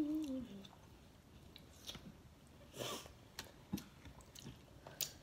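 Close-up chewing and small mouth clicks from people eating hot wings with their hands, with a short hummed "mm" right at the start and a brief noisy rush about three seconds in.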